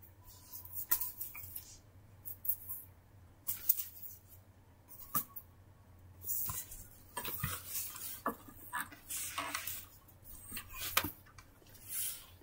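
Scattered light clicks, taps and short rustles of toys and objects being handled, coming irregularly every second or so with a few longer rustling bursts around the middle.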